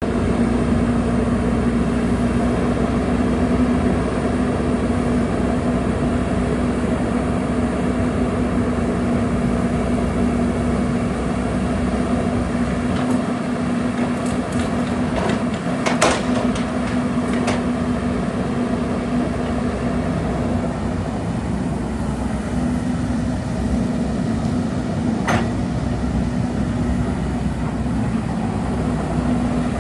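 A LiuGong 915E tracked excavator's diesel engine running at a steady speed, with a few short metallic clanks around the middle and one more later on.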